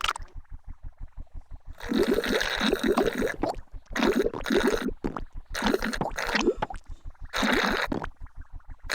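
Cartoon drinking noises: four loud gurgling, slurping sips of juice, each about a second long, over a steady low pulsing of about six beats a second.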